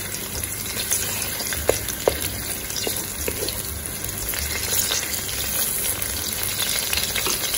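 Cut scallion pieces sizzling in a little hot oil in an aluminium pot as a wooden spoon stirs them around, with a couple of light taps about two seconds in.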